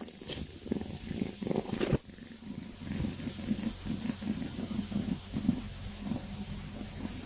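Domestic cat purring close to the microphone, a steady low rumbling pulse, with a couple of sharp clicks near the start and about two seconds in.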